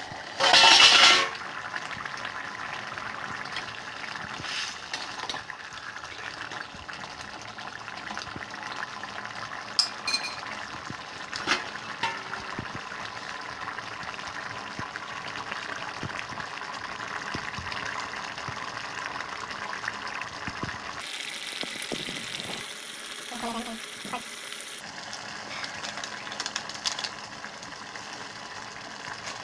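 A stainless-steel lid is lifted off a steel pot with a loud metal clatter about half a second in. After that, the tomato-and-potato liquid in the pot bubbles steadily, with a few light clinks.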